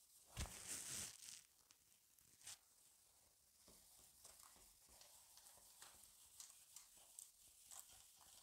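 Whiteboard duster rubbing across the board, with a knock and a brief rub about half a second in, a sharp click at about two and a half seconds, then faint scratchy wiping strokes.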